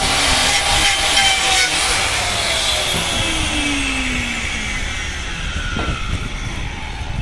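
Angle grinder with an abrasive disc grinding a bull's hoof during trimming. About a second and a half in it is switched off, and its whine falls steadily in pitch as the disc spins down over the next few seconds.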